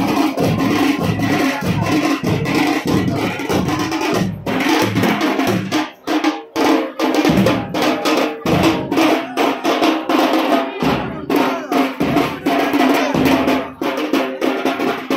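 Several frame drums beaten with sticks in a fast, loud, dense rhythm. The beat drops out briefly about six seconds in, with shorter pauses later.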